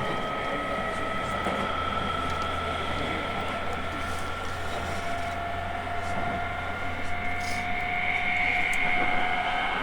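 E217-series electric train's traction motors and inverter whining under power, heard from inside the car: several steady tones creep slowly up in pitch as the train accelerates, with a lower tone joining about halfway, over a low hum and running noise. The whine falls away at the very end.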